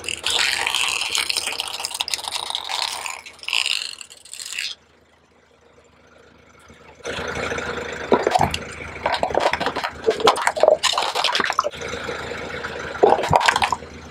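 Wet crackling and squishing of things being crushed under a car tyre, in two stretches with a short quiet break between them.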